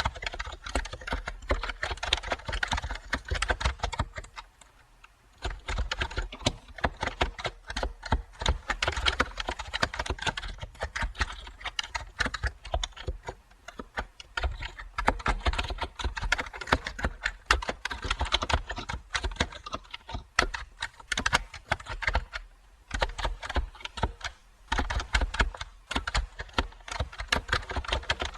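Typing on a computer keyboard: fast runs of key clicks, with a pause of about a second some four seconds in and short breaks near the end.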